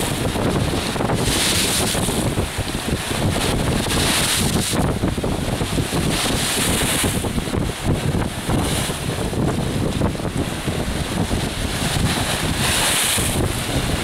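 Wind buffeting the microphone in a heavy, steady rumble, over choppy water with waves washing and splashing across the rocks, swelling up a few times.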